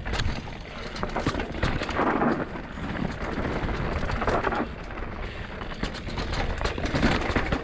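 Downhill mountain bike run heard from an on-board camera: wind buffeting the microphone, tyres on loose, dusty dirt, and the bike (a Scott Gambler downhill bike) rattling and clicking over the bumps.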